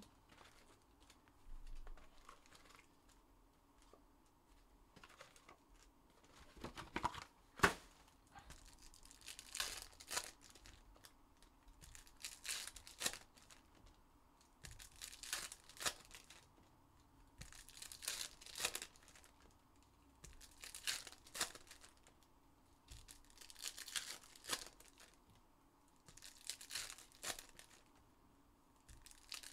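Foil wrappers of 2021-22 Panini Donruss Optic basketball hobby packs being torn open and crinkled one after another, about one pack every three seconds, with a sharp knock about seven seconds in.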